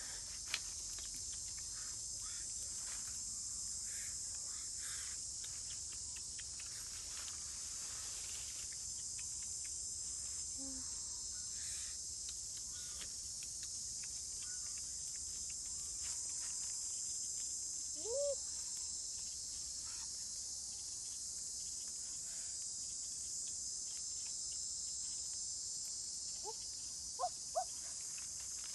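Steady high-pitched chorus of insects in tropical forest, with a short curved call about eighteen seconds in and two brief chirps near the end.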